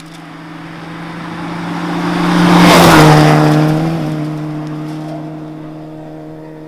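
Rally car on a gravel stage passing close by: engine held at steady high revs, growing louder, then passing about three seconds in with a drop in pitch and a hiss of gravel and tyre noise, then fading as it drives away.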